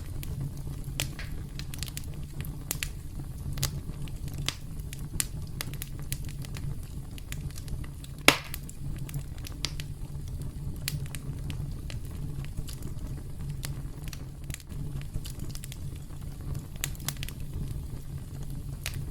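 Campfire crackling: a steady low rumble of burning wood with scattered sharp pops and snaps, one louder pop about eight seconds in.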